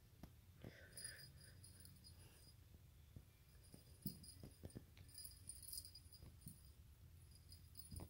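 A small jingle bell tinkling faintly in short bursts, as with a moving cat, with a few soft knocks from movement in between.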